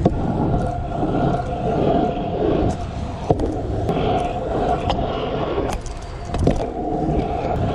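Stunt scooter wheels rolling over a pump track surface, a steady rumble broken by sharp knocks about three seconds in and again about six and a half seconds in.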